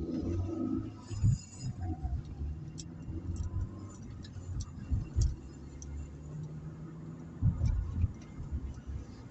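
Opel Meriva driving, heard from inside the cabin: a steady low rumble of engine and tyres, with a few thumps and scattered light ticks.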